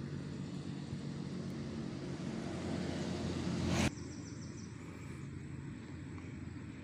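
A steady engine hum, growing louder, that cuts off abruptly about four seconds in. A quieter outdoor background follows.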